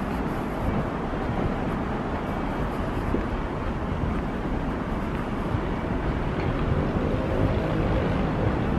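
Steady outdoor rumble of wind on the microphone mixed with distant city traffic. A faint pitched call rises out of it near the end.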